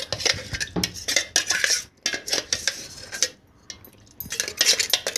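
A metal spoon scraping and clinking against a stainless steel mixer-grinder jar, with knocks of the jar and bowls, as thick rice batter is scraped out; the clatter pauses briefly a little past halfway.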